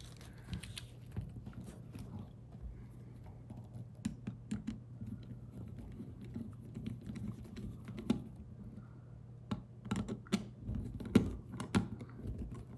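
Light clicks and taps of hands working a plastic 30 amp RV plug: a wire pushed into a terminal, then a screwdriver turning the terminal screw. The clicks come quicker near the end.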